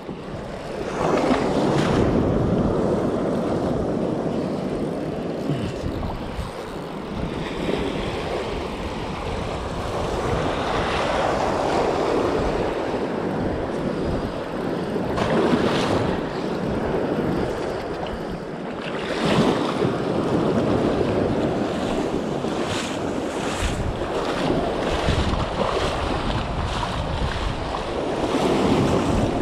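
Sea surf breaking and washing over rocks, surging up and falling back every few seconds, with wind buffeting the microphone.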